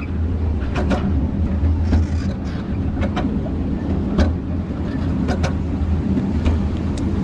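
Miniature railway train running along its track: a steady low rumble with sharp wheel clicks over the rail joints about once a second, some coming in quick pairs.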